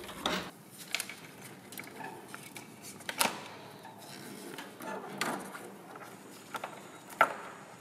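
Small clicks and clatters as gloved hands unplug the fan's plastic wiring connectors and move the cables on a Baxi 600/800 combi boiler. There are about seven separate clicks, the loudest a little past three seconds in.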